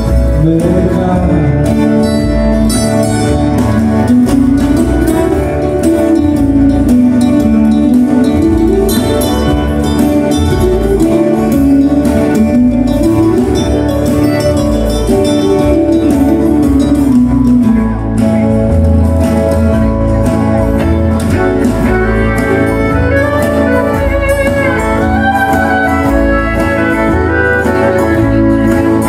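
Live country-western music: strummed acoustic guitars under a slowly wandering melody line. After a short break about two-thirds of the way through, a fiddle plays over acoustic guitar.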